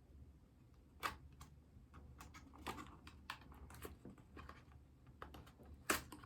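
Scattered light clicks and taps from objects being handled during an unboxing, irregular rather than a typing rhythm, with a sharper click near the end.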